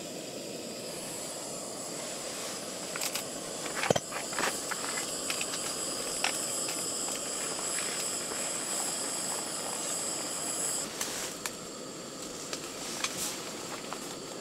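Gas camping stove burner hissing steadily, with metal clinks of the cooking pot being handled; the loudest clink comes about four seconds in.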